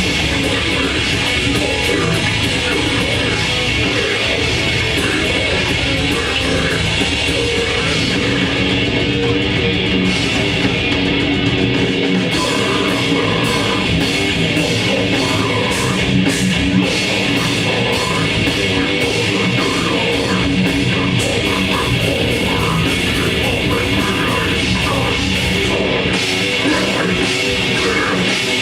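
Live grindcore band playing loud, distorted electric guitar, bass and drums at full volume, with dense drum hits.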